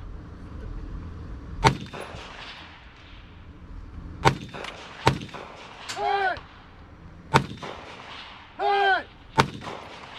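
Five single rifle shots fired slowly and unevenly, one to two and a half seconds apart. Short, high, shouted calls come between the later shots.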